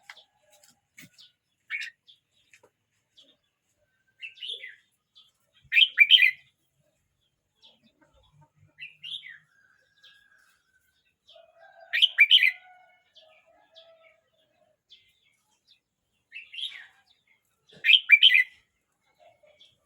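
A year-old red-whiskered bulbul singing short, quick warbled phrases, with the loudest phrases coming about every six seconds and softer notes in between.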